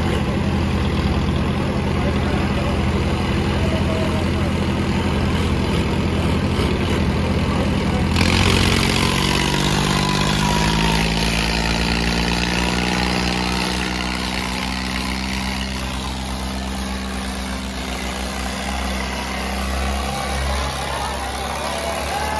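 Diesel tractor engines running at high throttle under heavy load in a tractor tug-of-war. About eight seconds in, the noise jumps and an engine's pitch sinks steadily over several seconds as it lugs down against the pull.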